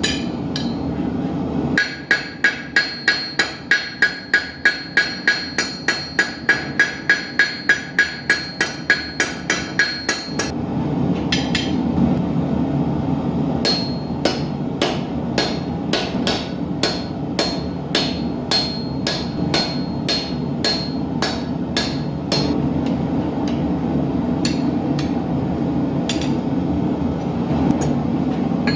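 Hand hammer striking hot steel on an anvil while forging an arrowhead: a fast run of ringing blows, about four a second, then after a pause slower blows about two a second. A gas forge runs steadily underneath.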